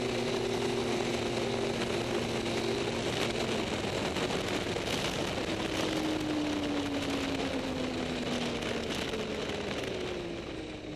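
Snowmobile engine running at speed over a steady rushing noise. From about six seconds in, its pitch falls steadily, and near the end the sound drops off as the machine slows.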